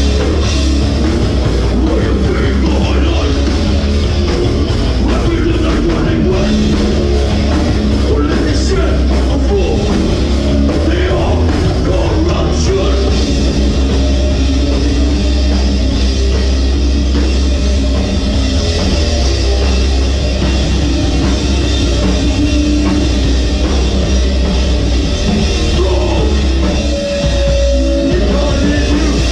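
Hardcore punk band playing live and loud: distorted guitars, bass and drums, with vocals shouted into the microphone.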